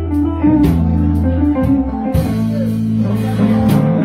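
Live blues band playing an instrumental passage: electric bass holding long low notes under electric keyboard and hollow-body electric guitar, with no singing.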